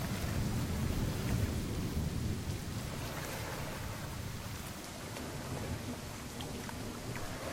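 Steady rain hiss with a low rumble of thunder that dies away over the first couple of seconds.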